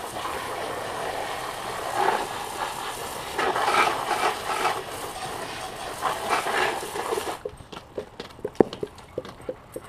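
Garden hose spray nozzle hissing as water spatters onto a muddy RC truck's chassis. The spray stops abruptly about seven seconds in, followed by a scatter of light knocks and clicks as the truck is handled.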